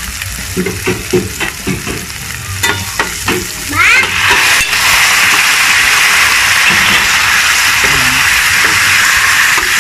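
A metal spatula scrapes and taps a stainless-steel pan of frying garlic and onion. About four seconds in, raw chicken pieces are tipped into the hot oil and a loud, steady sizzle takes over.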